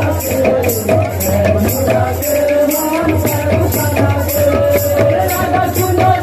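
Udanda kirtan music: hand-played barrel drums with metal cymbals striking a steady beat of about three strokes a second, under a wavering sustained melody line.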